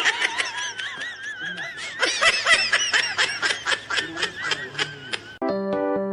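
A person laughing hard in high, wavering squeals and quick panting gasps, cut off about five seconds in by piano music.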